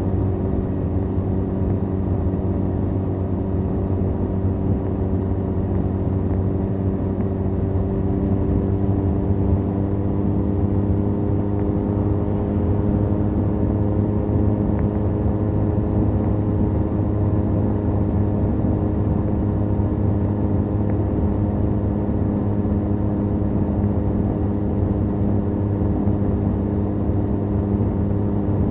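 Benelli 502C's 500 cc parallel-twin engine running through its stock exhaust, cruising at a steady, even speed. The engine pitch creeps up slightly over several seconds, then holds. Wind and road noise sit under it.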